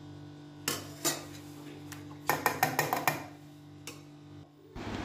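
A steel strainer and spoon clinking and tapping against a stainless-steel mixer-grinder jar as strained soaked dal is tipped in: a couple of single clinks, then a quick run of taps a little past the two-second mark, and one more near the end.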